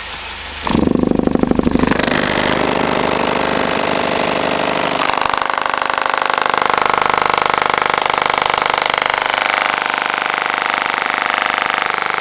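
A bare 12-inch Audio System Radion subwoofer driven far past its limits by a low test tone, its cone making huge excursions: a loud, harsh, distorted buzz sets in about a second in, pulsing rapidly at first, then runs on steadily. The voice coil is already overheating; it smells hot.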